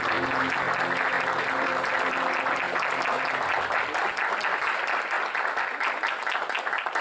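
Audience applauding, the clapping running on steadily. The music's last held notes fade out in the first few seconds.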